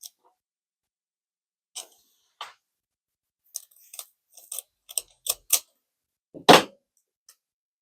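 Scattered sharp clicks and snips of booster packs and trading cards being handled, with scissors cutting a pack open, and one louder thump near the end.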